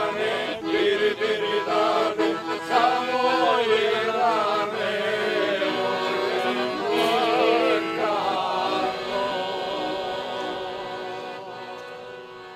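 Voices singing a Serbian folk song over a steady held low note, the melody wavering and ornamented; it fades out near the end.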